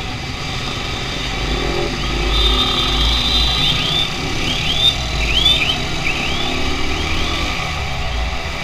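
Motorcycle riding through dense street traffic: its small engine running, with nearby trucks and motorbikes. Through the middle a high warbling tone rises and falls about twice a second for several seconds.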